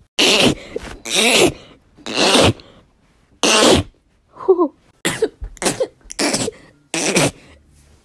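A woman sneezing in a rapid fit: about eight sharp sneezes in a row, the later ones coming faster, with a brief voiced gasp between them about halfway through.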